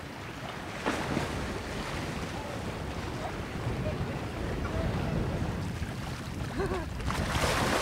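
Wind buffeting the microphone over choppy sea waves, growing louder near the end.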